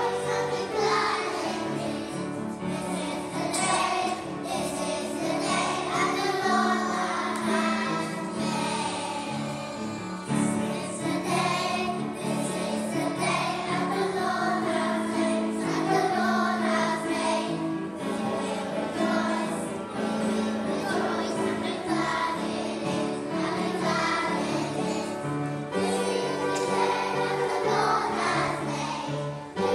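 A group of young children singing together along with instrumental backing music.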